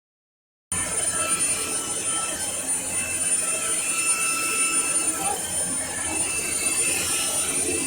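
Cordless stick vacuum running steadily: an even rushing noise with a constant high-pitched motor whine. It starts abruptly after a moment of silence.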